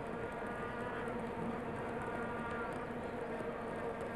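Vuvuzelas in the stadium stands, several horns overlapping into a steady, buzzing drone over crowd noise.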